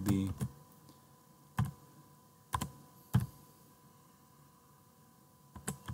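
A few separate keystrokes on a computer keyboard, spaced about a second apart, with a quick pair of keystrokes near the end.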